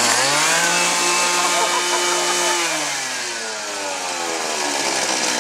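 Small petrol engine of a child's go-kart revving up, holding high revs for about two seconds, then falling back to a low idle about three seconds in.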